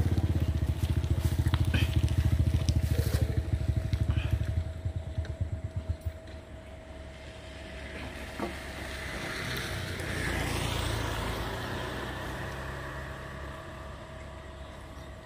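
A small engine running with a fast, even beat that slows and dies away about six seconds in. A broad rushing sound then swells and fades a few seconds later, over a faint steady hum.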